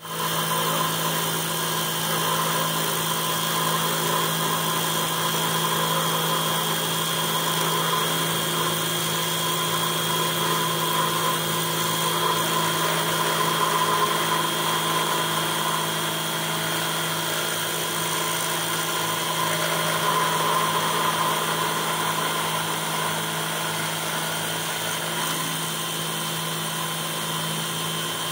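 Spindle of a small Chinese 1310 CNC engraver, driven by an offset 750 motor through a reduction, milling brass with a 2 mm four-flute end mill. It makes a steady whine of several held tones that does not change.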